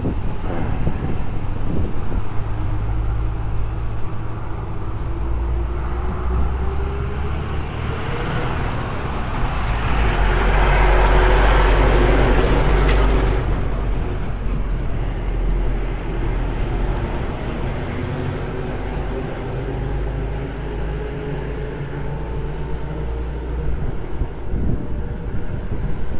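Road traffic: a heavy motor vehicle's engine running and passing, with a steady low rumble and an engine note that slowly rises and falls. It swells loudest about halfway through, with a brief sharp hiss at its peak.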